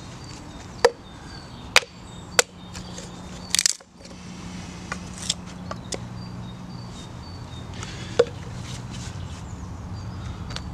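Small axe chopping and splitting sticks of kindling on a log: a handful of sharp, irregularly spaced wooden chops and cracks, over a low steady drone.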